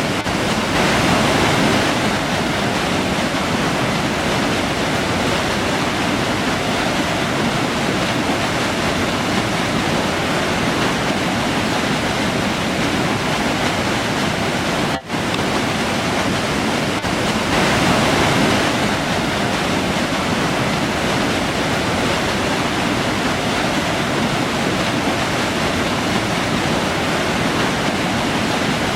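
River water rushing steadily over rocks in a full, even roar, briefly dipping for a split second about halfway through.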